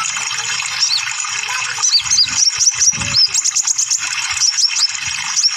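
Kolibri ninja (Van Hasselt's sunbird) song: quick, high, sharp chirps, each sliding down in pitch, packed into a fast trill about halfway through. A steady rushing hiss runs under it.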